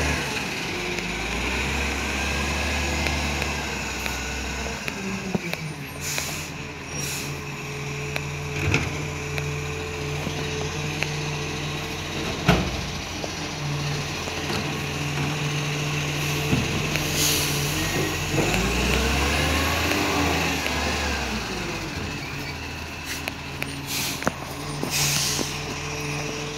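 Iveco ACCO garbage truck's engine running as it moves along the street, its pitch rising and falling twice, with short air-brake hisses and a couple of sharp knocks.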